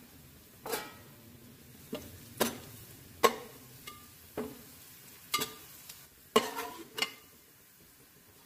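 Perforated steel skimmer knocking and scraping against a metal pot while stirring sliced onions browning in hot oil: about ten irregular clanks with a short metallic ring, over a faint sizzle of the oil.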